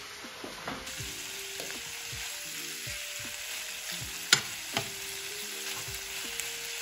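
Chicken thigh pieces and onion sizzling as they fry in oil in a nonstick pan, stirred with a metal spoon. A sharp clink of the spoon against the pan comes about four seconds in, with a lighter one just after.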